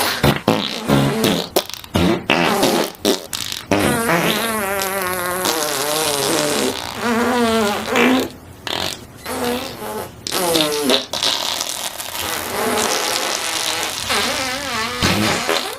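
A string of fart sound effects, one after another: short sputtering blasts in the first few seconds, then longer, wavering, fluttering farts with brief gaps between them.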